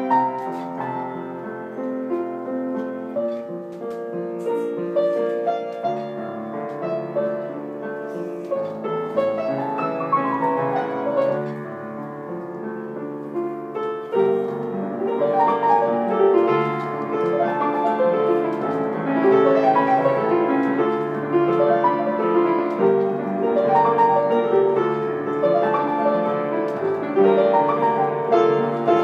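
A solo piano piece in a gentle, slow style. A descending run of notes comes about ten seconds in, and the playing grows fuller and louder from about halfway through.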